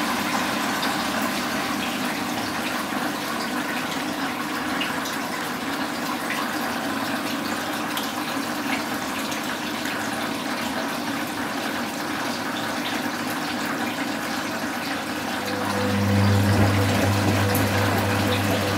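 Constructa Contura washing machine with water rushing steadily through it. A low hum from the machine is absent for most of the stretch and comes back in near the end, a little louder.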